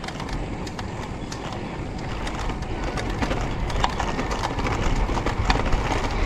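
Road bike climbing slowly, heard from a handlebar-mounted camera: a low rumble of wind and tyre noise with many small, irregular clicks and ticks, growing slightly louder.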